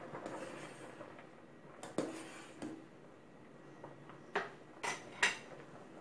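Metal ladle clinking against the side of an enamel pot of boiling rice soup while it is stirred: a few light knocks about two seconds in, then three sharper ringing clinks near the end, over the soft bubbling of the boil.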